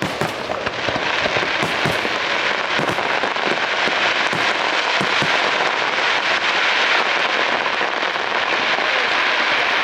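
Fireworks display going off: a quick run of pops and bangs that thickens after a few seconds into a dense, continuous crackle.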